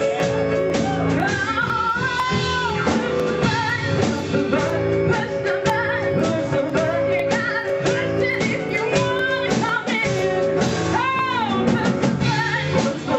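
Band music from a song number: a steady bluesy groove with bass and chords under it, and a melody line that bends and wavers in pitch over the top, most clearly about 2 seconds in and near the end.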